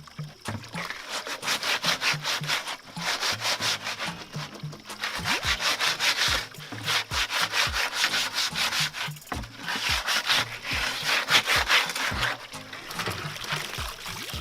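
A plastic jerry can being scrubbed clean by hand: quick rhythmic rubbing strokes, about five a second, in bursts with short pauses between them.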